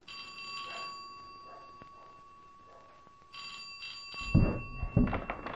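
A doorbell rung twice, about three seconds apart, each ring fading slowly, followed by a few loud thumps near the end.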